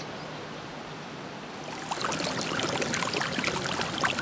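Faint steady hiss, then about two seconds in, hot spring water welling up over stones starts splashing and trickling, clearly louder.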